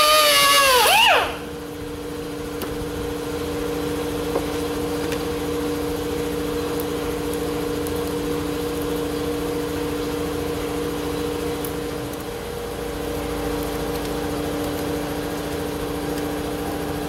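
A hand-held grinder's high whine falling in pitch as it winds down, about a second in. After it, a steady machine hum runs on, with a short dip near the end.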